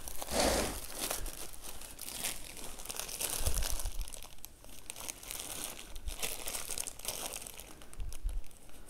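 Plastic packaging rustling and crinkling as bagged parts are handled and lifted out of a box, with a couple of soft knocks.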